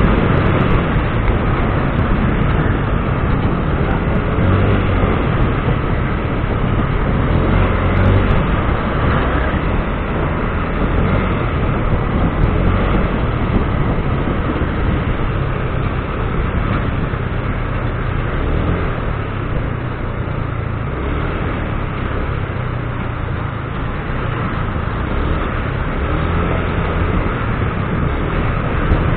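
Steady running noise of a motor vehicle on the move, a continuous rumble with no clear breaks.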